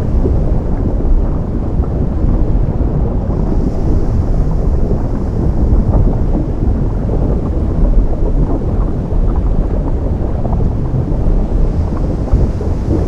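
Ocean surf meeting lava: a loud, steady deep rumble with a crackling texture. A faint high hiss swells in about three seconds in.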